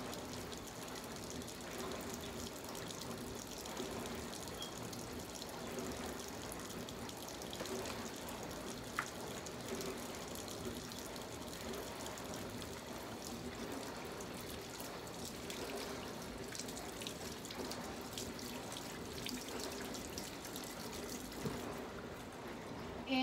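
Kitchen tap running steadily into a sink, with one short click about nine seconds in.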